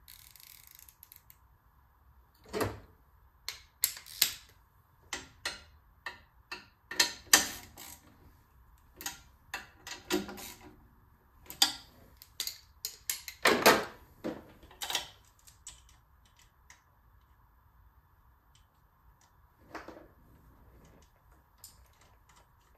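Irregular clinks and knocks of hand tools and metal parts being worked in a car's engine bay. They come in a busy run for about twelve seconds, then only a few stray ones.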